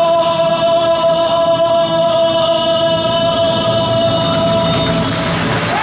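A man holds one long, steady final note into a microphone over a karaoke backing track for about five seconds. Applause starts as the note ends near the end.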